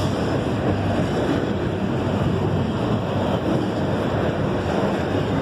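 Freight train of autorack cars rolling steadily past at close range: a continuous even noise of wheels on rail and car bodies.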